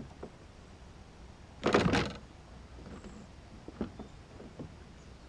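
A brief thump with a scrape about two seconds in, then a few faint knocks: handling noise on the kayak.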